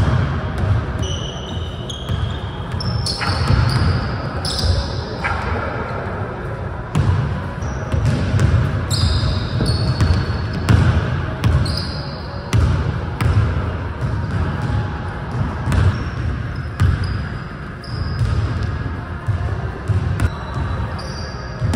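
A basketball being dribbled and bouncing on a hardwood gym floor in a large hall, with many short, high-pitched sneaker squeaks as the players cut and stop.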